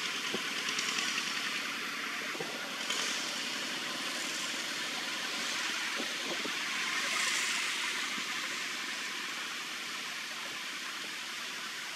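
Steady hiss-like outdoor background noise that swells slightly about three seconds in and again about seven seconds in, with a few faint ticks.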